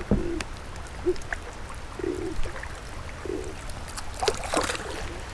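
A blue catfish being released from a dock into creek water: water sloshing and gurgling, then a cluster of splashes about four seconds in as the fish goes back in. Steady rain hiss underneath.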